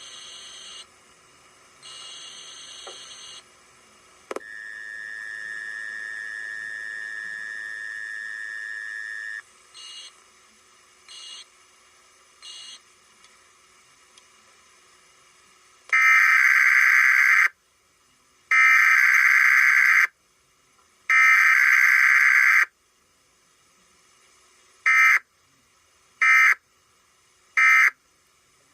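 Emergency Alert System required weekly test: three loud, screeching SAME digital header bursts, each about a second and a half long and about a second apart, followed a few seconds later by three short end-of-message bursts. Before them come fainter data bursts and a steady electronic tone lasting about five seconds.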